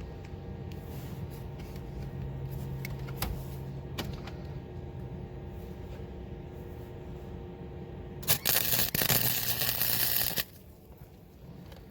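An electric welder hums steadily, then about eight seconds in comes a loud burst of arc crackle lasting about two seconds as a nut is welded onto a broken bolt stub.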